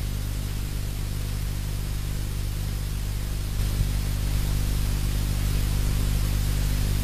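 Steady hiss with a low electrical hum over a blank stretch of the recording, growing slightly louder a little over halfway through.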